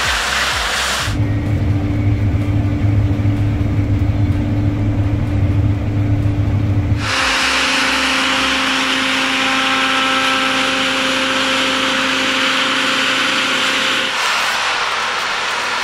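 New Holland CR10.90 combine harvester running steadily under load, its engine and threshing machinery heard in three takes that change abruptly about a second in, about seven seconds in and about fourteen seconds in; the first take has a strong low hum, the middle one a steadier hiss with a faint whine.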